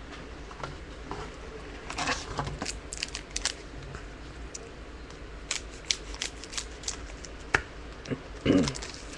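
Trading cards being handled and flipped through: bursts of light clicks and rustles, with a sharp snap about seven and a half seconds in and a short, louder dull sound near the end.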